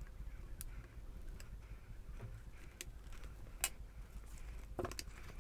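Scattered light plastic clicks and ticks from a Grundig GNB 1150 laptop's plastic case being handled and pried apart with its screws out. The sharpest click comes a little after halfway, and a few more follow close together near the end.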